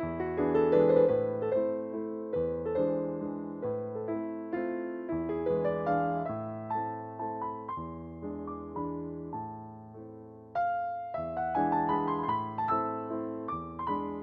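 Background piano music: gentle keyboard notes struck one after another, each fading, with a louder chord about ten and a half seconds in.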